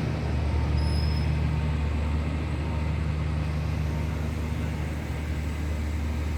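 A vehicle or machine engine running steadily, a low even drone with no change in speed.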